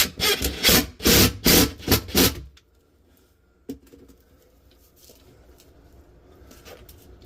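Hand tool scraping back and forth on drywall, in about seven quick strokes at roughly three a second, stopping about two and a half seconds in. A single sharp click follows a little over a second later, then it is nearly quiet.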